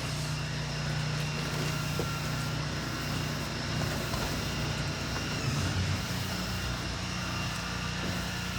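An engine running steadily at constant speed: a low hum with an even hiss over it.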